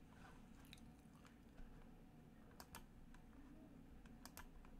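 Near silence with a few faint, sharp clicks from a computer being operated, some in quick pairs.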